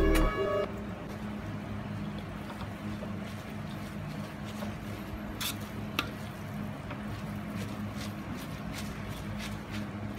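Rice vermicelli being stir-fried in a metal wok, a wooden spatula scraping and tossing the noodles over a steady hiss and faint low hum. A few sharp taps of the spatula against the wok come through, the loudest about six seconds in. Background music cuts off right at the start.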